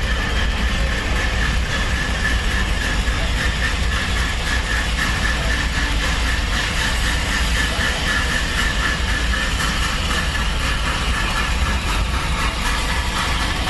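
Battle of Britain class steam locomotive 34067 Tangmere moving slowly past with its train: a steady hiss of escaping steam over the rumble of the engine and coaches on the rails.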